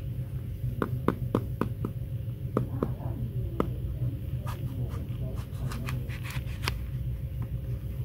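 Kitchen knife cutting through a crisp raw apple: a run of sharp crunching clicks, then a second quicker run a little past the middle, over a steady low hum.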